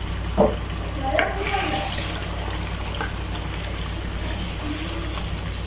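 Chicken karahi sizzling in oil and tomato masala in a nonstick wok on a gas burner while a wooden spatula stirs it, with a single knock about half a second in.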